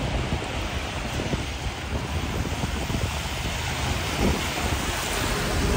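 Steady wet city street noise in winter rain: a hiss of rain and traffic on wet roads, with some wind on the microphone.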